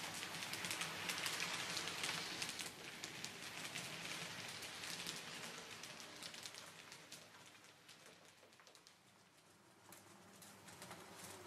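N-scale model passenger coaches rolling along the track, their small metal wheels making a rapid, irregular clicking over the rail joints and points. The clicking is loudest at first and grows fainter as the coaches move away.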